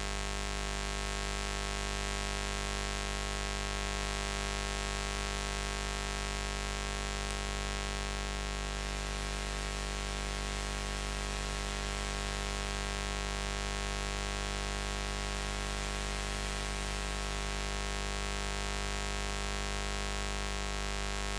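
Steady buzz sound effect: one low, unchanging pitch with a dense stack of overtones, holding the same pitch and loudness throughout.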